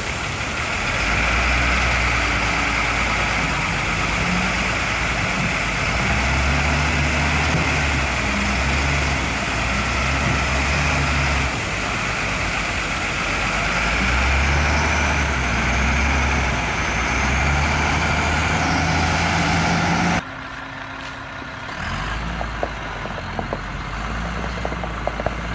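SEM wheel loader's diesel engine running under load, revving up and settling back several times, over a steady high hiss. About 20 seconds in it cuts to a quieter engine sound with a few sharp clicks.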